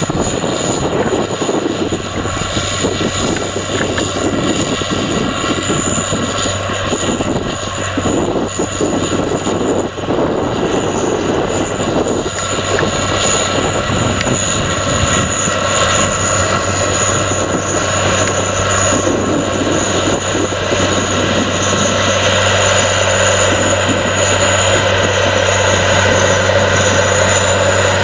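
Caterpillar Challenger MT865C tracked tractor's six-cylinder diesel engine running steadily under load while pulling a reversible plough, growing a little louder toward the end as the tractor comes closer.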